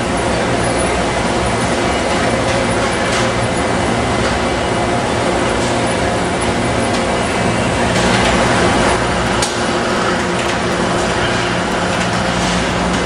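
Automated bakery production line running: conveyors and the robotic muffin depanner make a steady, loud machinery noise with a low hum and a few light clicks.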